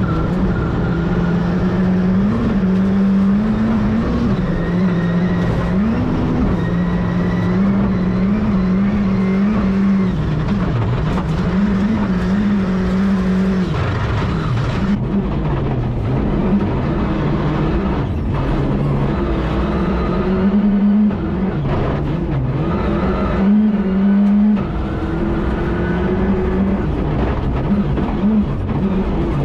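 Rally car engine heard from inside the cockpit at full effort, its pitch climbing and dropping again and again as it goes up and down through the gears, over constant road and transmission noise.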